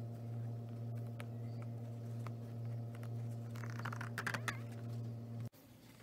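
A steady low hum runs under light clicks and a brief scratchy rustle about four seconds in, from fingers picking at the stitched edge of a leather bag. The hum cuts off suddenly near the end.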